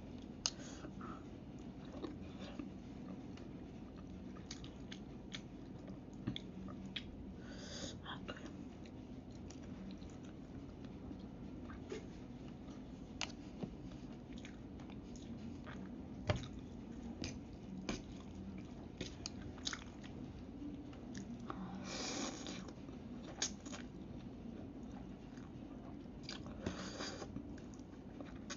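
Close-up eating sounds: instant noodles being chewed, with scattered sharp clinks of a metal fork against a ceramic plate. There are two longer slurps, about three-quarters of the way in and near the end.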